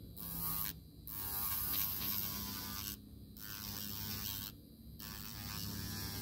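Electric nail file (e-file) running, its white bit grinding lifted nail product off a fingernail. A steady motor hum sits under a high hissing grind that breaks off briefly three times.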